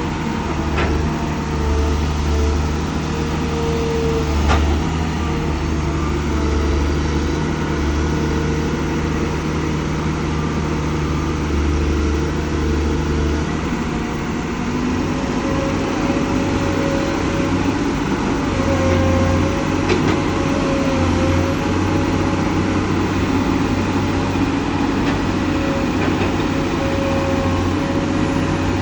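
Komatsu PC200 hydraulic excavator's diesel engine running steadily under work, a continuous drone whose note shifts about halfway through, with a higher whine coming in.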